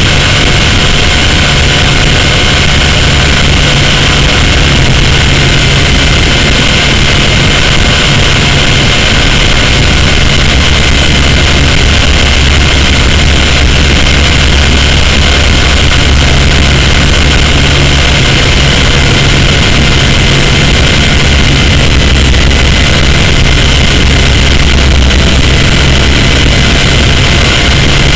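Blade 130X micro RC helicopter's electric motors and spinning rotors, heard from a camera strapped to the airframe: a loud, steady, high whine with a low drone underneath that shifts in pitch a few times as the helicopter flies.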